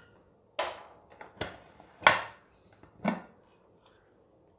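Aluminium pressure cooker lid being worked open and lifted off: four metallic clanks with a short ring, the loudest about two seconds in.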